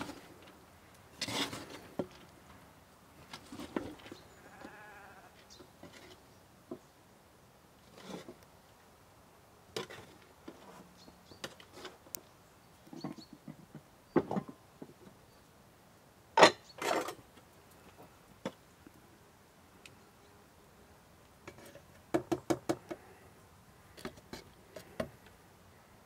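Scattered knocks and clicks, with a short animal call about five seconds in and a quick run of pulses near the end.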